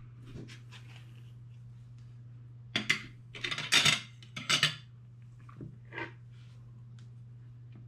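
A knife and fork clinking and clattering against a plate in a few short bursts, the loudest between about three and five seconds in, over a faint steady low hum.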